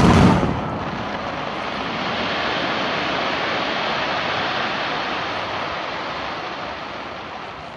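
A fireworks shell bursts with a loud boom at the start, followed by several seconds of steady crackling hiss that swells and then slowly fades.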